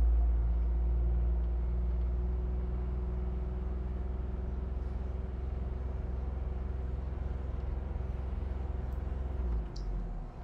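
John Deere Gator utility vehicle driving, heard from inside its cab: a steady low engine and drivetrain hum that eases a little in the first couple of seconds.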